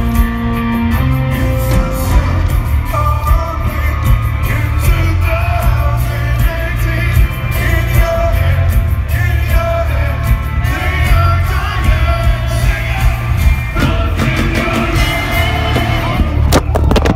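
Live rock band playing loud, with a heavy booming low end from bass and drums, heard from the crowd. Sung vocals come in about three seconds in and carry on over the band.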